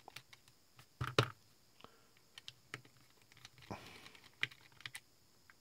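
Light, scattered clicks and ticks of a precision screwdriver turning a tiny screw in a plastic USB soldering iron body, with a louder pair of clicks about a second in.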